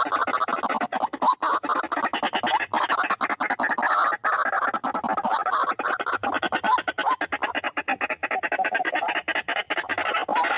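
White-breasted waterhens calling in a fast, unbroken run of harsh repeated notes, about ten a second.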